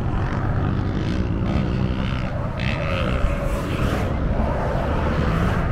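Vehicle engines running steadily, their pitch gliding up and down now and then, over a low wind rumble on the microphone.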